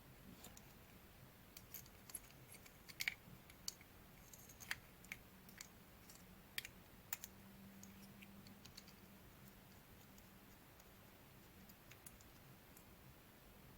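Near silence broken by faint scattered clicks and taps from small parts of an old OO-gauge model locomotive being handled, most of them in the first two thirds.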